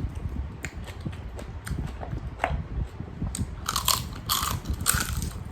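Close-up chewing and biting of food, with small wet clicks, then several loud, crisp crunching bites in the second half.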